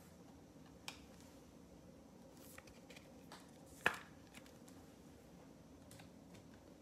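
Quiet handling of trading cards, with a small click about a second in and a sharper click near four seconds.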